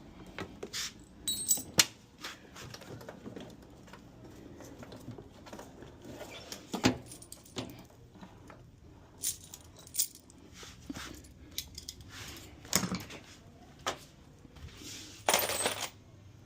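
Irregular clinks and knocks of metal tools and small metal parts being handled, a few with a brief ringing tone, and a longer rattle near the end.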